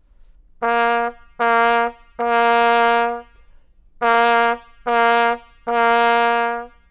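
Cornet playing six cleanly tongued notes on one pitch, the written C (concert B-flat), in a short-short-long, short-short-long rhythm: buzzing and tonguing together giving a clean brass tone.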